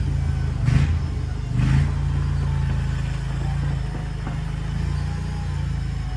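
Engine of a JQ400 mini skid steer running steadily, with two short rushing sounds, the first just under a second in and the second a second later.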